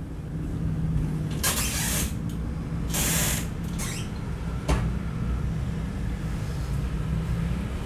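Handling noises while searching for a rag to wipe oil off the pliers: two brief rustles, about a second and a half and three seconds in, then a sharp click about halfway through, over a steady low hum.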